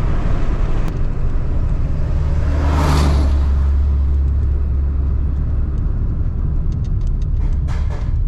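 A car on the move: a steady low rumble of engine and road noise, with a brief whooshing swell about three seconds in.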